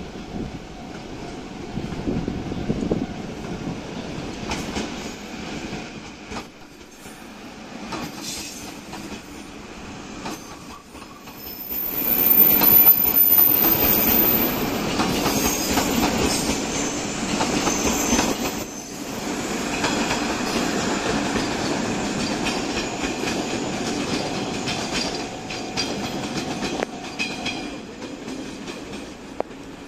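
A JNR 381-series limited express electric train pulls out of the station and passes close by, its wheels clicking over the rail joints. It is loudest as the cars go past, about twelve to nineteen seconds in, then fades as the train draws away.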